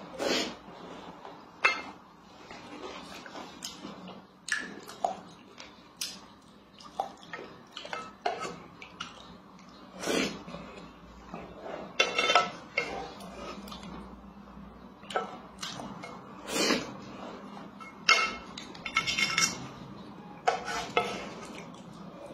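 A spoon scraping and clinking irregularly against a metal rice-cooker inner pot as rice porridge is scooped up and eaten, with a few louder knocks.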